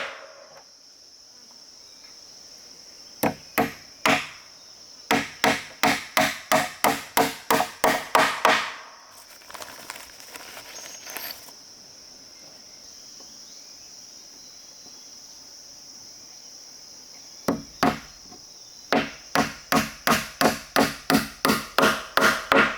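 Repeated chopping strikes on wood, about three a second in runs of several seconds with pauses between, over a steady high-pitched drone of insects.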